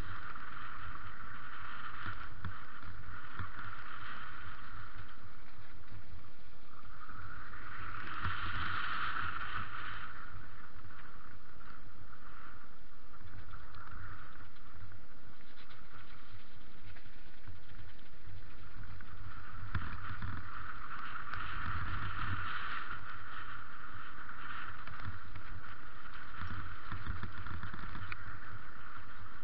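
Riding noise from a mountain bike rolling down a gravel dirt trail, picked up by a bike- or helmet-mounted action camera: a steady rush over a low rumble, with many small knocks from bumps in the trail. The rush swells louder twice, about a third of the way in and again about two thirds of the way in.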